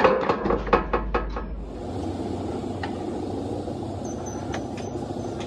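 A quick run of about seven sharp metal clanks on a steel truck chassis rail in the first second and a half, each ringing briefly. Then a steady low running noise with a few light clicks.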